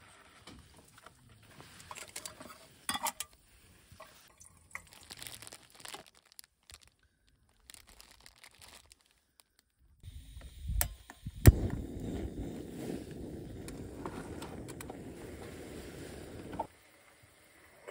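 Soft clicks, taps and plastic-packet crinkling from handling camp cookware, then a sharp click and the steady hiss of a gas-canister stove's burner, which cuts off suddenly near the end.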